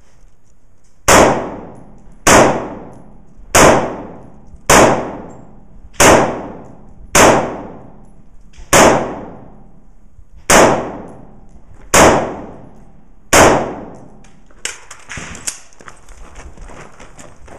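Ten single gunshots fired slowly and deliberately, one every one to two seconds, each with a long ringing echo under the roof of a covered shooting bay. After the last shot come only light clicks and knocks of gear being handled.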